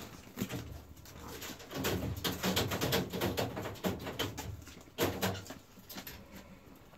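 Young polecat kits dooking: a fast, clucking chatter, one long run about two seconds in and a shorter burst about five seconds in.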